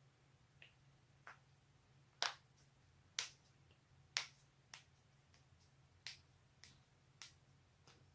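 Human joints cracking: a series of about a dozen sharp pops, roughly one every half second to a second, the loudest three about two to four seconds in.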